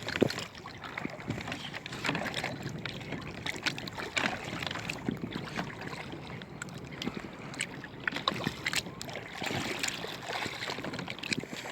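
Irregular knocks and splashing on a kayak as a catfish is landed, with wind on the microphone.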